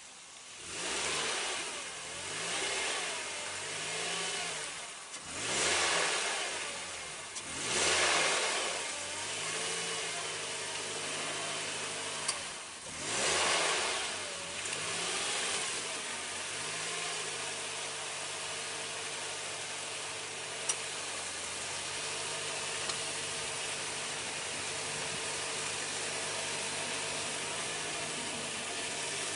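Off-road vehicle engine revving in about six surges while its wheels spin, each surge bringing a rush of noise, then running at a steady speed for the last dozen seconds. A couple of brief sharp ticks.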